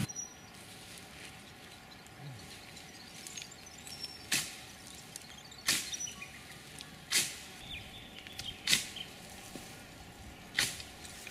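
Dry gorse and broom stems snapping: about five sharp cracks a second or two apart, with smaller clicks between them.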